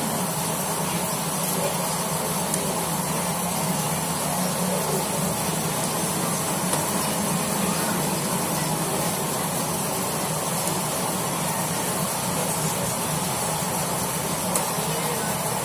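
Steady background hiss with a low hum, even throughout.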